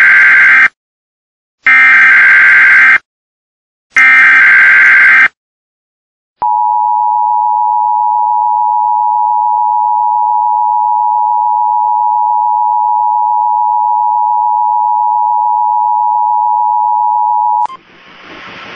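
Emergency Alert System tornado warning tones: the loud screeching digital header bursts, the end of one and then two more with short silences between, followed by the steady two-tone EAS attention signal held for about eleven seconds. It cuts off near the end into radio hiss as the voice message begins.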